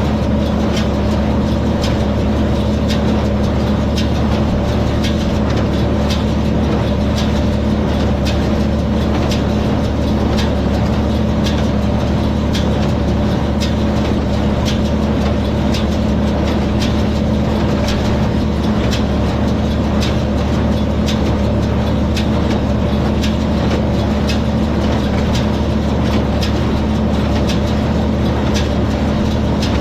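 Tractor engine running steadily under load while pulling a small square hay baler, with the baler's plunger knocking regularly, about one and a half strokes a second.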